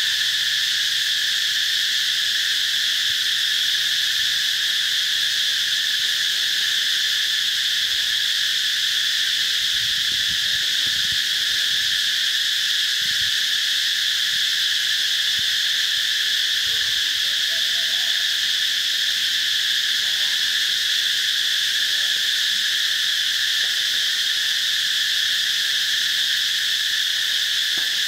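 A steady, unbroken insect chorus droning at a high, even pitch without let-up.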